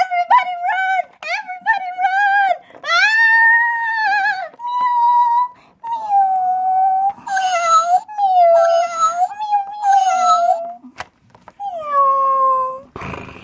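A string of about a dozen cat meows, one after another, each a drawn-out call that bends up and then down, with a short pause before the last one.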